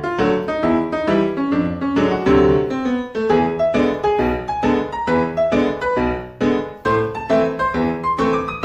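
Background piano music: a melody of evenly paced single notes, about three or four a second.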